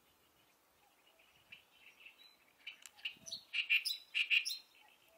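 Oriental reed warbler singing: a faint run of notes, then a loud phrase of rapid repeated notes starting a little after halfway and stopping shortly before the end.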